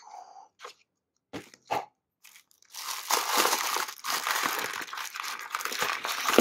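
A few light plastic clicks and taps from the clear plastic toy ball, then from about three seconds in a steady crinkling and rustling of plastic-film wrapper packets being handled and unwrapped.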